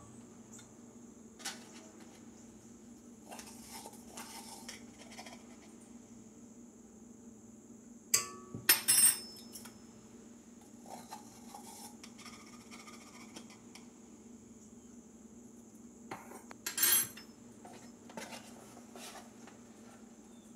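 Kitchen utensils clinking and scraping against a stainless steel stand-mixer bowl: a spatula against a glass measuring cup, and a measuring spoon on the bowl, with louder clinks about 8 seconds and 17 seconds in. A steady low hum underneath.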